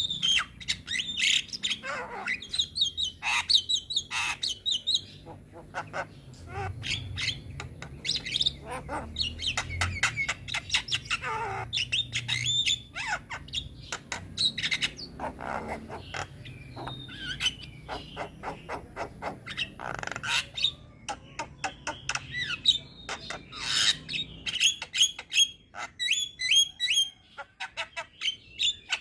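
Javan myna (jalak kebo) singing continuously: a fast, varied chatter of sharp clicking notes, short whistles and squawky phrases with many mimicked fill-in calls.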